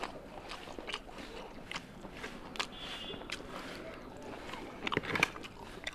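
Close-miked eating sounds: wet clicks and squelches as a hand mixes rice into thick mutton liver curry, along with chewing, with a louder cluster of clicks about five seconds in.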